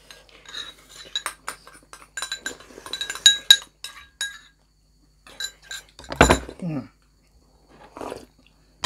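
Cutlery clinking and scraping against plates and bowls in a quick run of ringing clinks through the first four seconds or so. About six seconds in comes a short vocal sound whose pitch falls.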